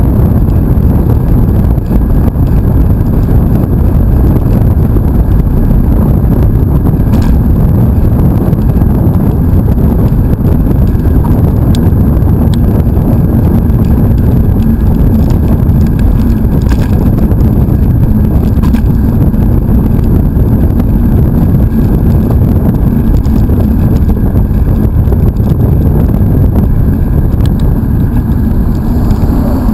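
Loud, steady wind rumble on the microphone of a camera riding on a mountain bike going fast on asphalt, with a faint low hum under it from about halfway through.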